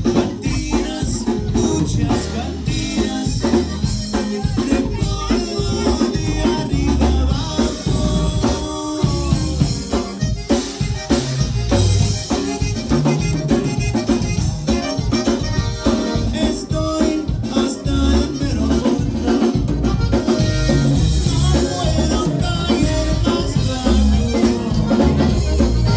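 Conjunto band playing live and loud: a drum kit keeps a steady dance beat under button accordion and singing.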